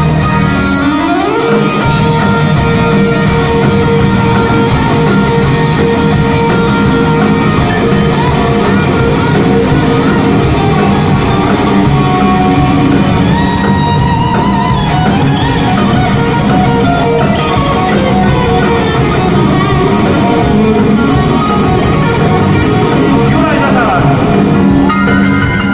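Live rock band playing loud through a PA in a large hall, with an electric guitar to the fore; a pitch glide about a second in.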